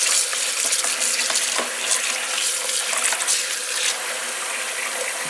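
Kitchen tap running steadily into a plastic bowl of raw shrimp in a stainless steel sink, splashing as hands rub the shrimp clean under the stream.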